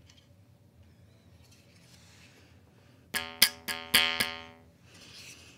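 Wooden karinding (Indonesian jaw harp) struck on its frame, giving about five quick twangs from about three seconds in. Each note rings briefly on one steady pitch.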